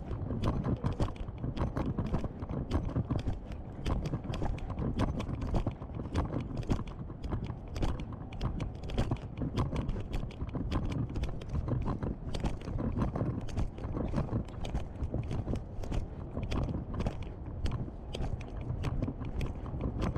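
Footsteps of a person walking on pavement, a continuous run of shoe clicks, over the low rumble of a camera held in the swinging hand.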